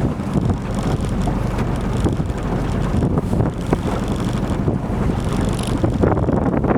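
Wind buffeting the microphone aboard a small fishing boat at sea, over a steady low rumble from the boat and water.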